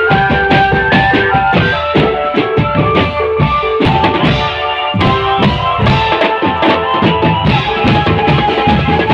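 Marching drum band playing: a steady beat of snare and bass drums under a tune carried by melody instruments in held notes.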